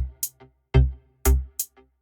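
Electronic background music with a steady drum-machine beat: deep kick drum and sharp snare hits about twice a second over a low bass line.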